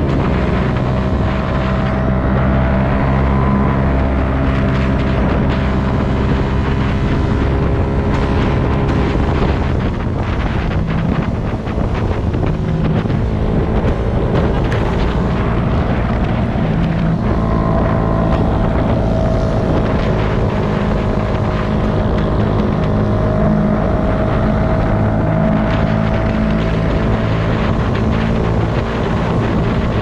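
Honda CBR250RR motorcycle engine running at a steady cruising pace, its note shifting only slightly, with wind rushing across the helmet-mounted microphone.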